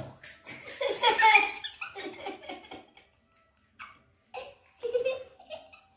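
Young boys laughing in several bursts, the loudest about a second in, with more short laughs near the end.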